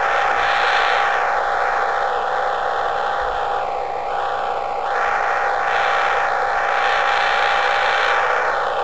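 Radio receiver static: a steady hiss that slowly swells and fades every few seconds, with a constant thin tone running under it, picked up while listening for Jupiter's radio emissions.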